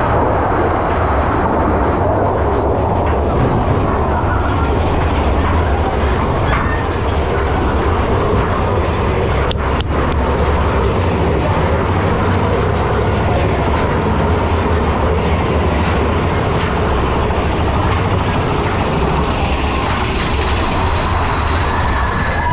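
Mine-train roller coaster cars running along the track: a steady loud rumble and rattle, with a couple of sharp clacks about ten seconds in.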